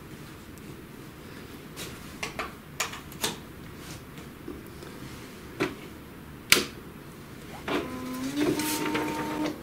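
Samsung ML-1210 laser printer going through its power-on warm-up cycle: a scattering of sharp clicks from its mechanism, then its motor runs with a steady whine that steps up in pitch over the last two seconds.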